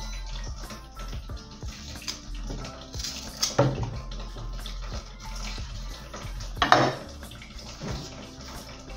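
Background music under kitchen handling sounds as a plantain is peeled with a knife over a wooden chopping board. Two short, louder rasps stand out, about three and a half seconds in and again near seven seconds.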